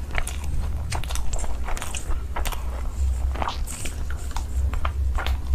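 Close-miked mukbang eating sounds: biting and chewing into saucy fried chicken, a dense, irregular run of crunches and wet mouth clicks over a low steady hum.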